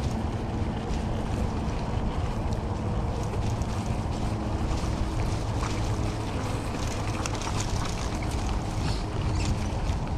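Wind buffeting the microphone of a camera riding on an electric bike, a dense low rumble, with scattered crackle from the tyres on dry dirt. A faint steady hum, likely the e-bike's motor, runs under it and steps up in pitch about halfway.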